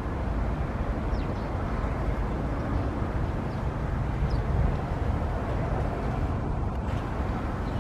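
Steady low rumbling background noise, with a few faint, short high chirps about a second in and again past four seconds.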